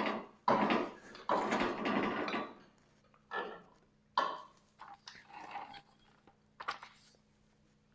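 Irregular metallic clattering and scraping from hand work on a Frontier OS27 sawmill head's height setting. It comes in dense bursts for about the first two and a half seconds, then thins to scattered knocks and clicks, over a faint steady hum.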